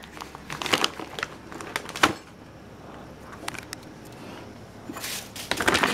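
Plastic bag of dry cat food crinkling and rustling as it is carried and handled, with a sharp knock about two seconds in and a louder rustle near the end.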